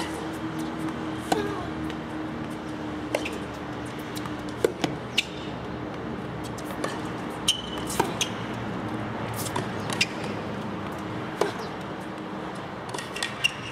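Tennis rally: tennis balls struck by racket strings and bouncing on the hard court, sharp pops every one to two seconds, over a steady low hum.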